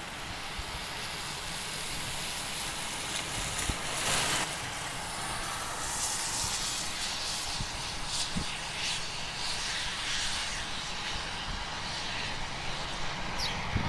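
Airliner engines heard as a steady rushing hiss, with gusty wind rumbling on the microphone underneath.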